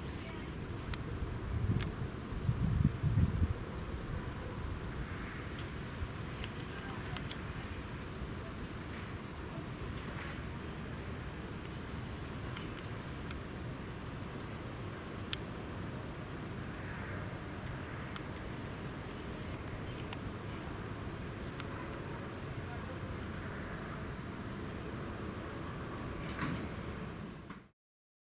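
Steady, high-pitched insect chirring with a few low buffets about two to three seconds in. The sound cuts off abruptly shortly before the end.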